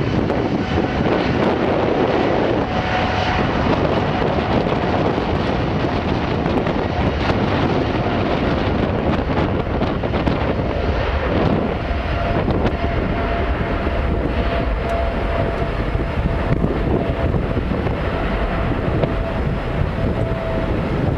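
Jet engines of a KLM Boeing 777 running as it rolls along the runway, a steady roar with a thin whine that comes in about halfway through. Strong wind rumbles on the microphone underneath.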